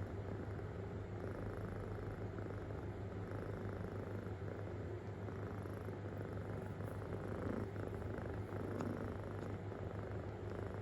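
Kitten purring deeply and steadily.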